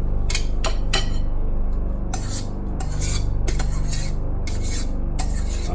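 Canned corn being scraped out of its tin into the potatoes: a series of irregular rasping scrapes of a utensil against the metal can, over a steady low hum.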